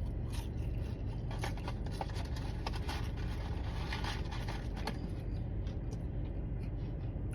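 Car engine idling steadily, heard from inside the cabin as a low hum, with scattered small clicks and rustles over it.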